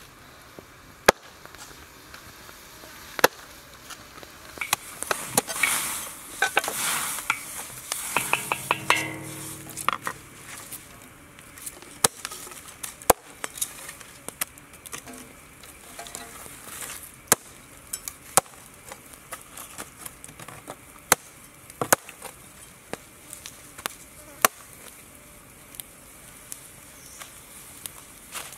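Steel cleaver chopping a skinned snake into segments on a wooden chopping block: single sharp blows at irregular intervals of one to a few seconds. An insect buzzes briefly about nine seconds in.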